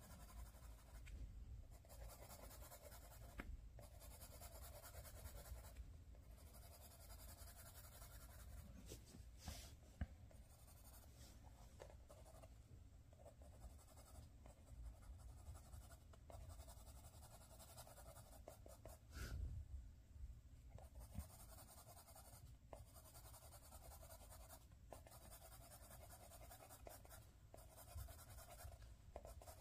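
Faint pencil scratching on paper in runs of quick hatching strokes, broken by short pauses every couple of seconds, with a soft thump about two-thirds of the way through.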